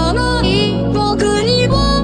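J-pop song playing: a bending melody line over a sustained bass.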